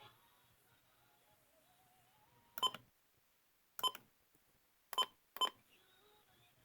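Four short electronic button beeps from a radio as it is switched between stations. The first three come about a second apart and the last follows closely on the third.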